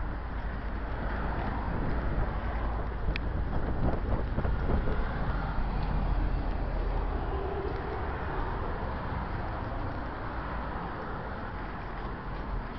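Road traffic on a busy city street, with wind rumbling on the microphone. A single sharp click about three seconds in.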